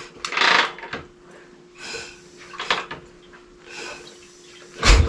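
Harley-Davidson Shovelhead stroker V-twin being kick-started. A heavy thump of the kick stroke turns the engine over near the end, but it does not fire; the rider thinks he has flooded it. Quieter scuffing sounds come in between.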